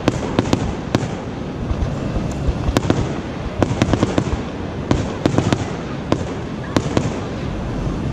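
Aerial fireworks shells bursting: an irregular run of sharp bangs and pops, some in quick clusters, over a steady background of noise.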